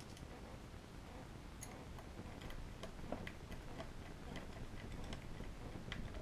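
Faint, irregular small metallic clicks and ticks from the parts and screws of a push-button door lock being handled and fitted during reassembly.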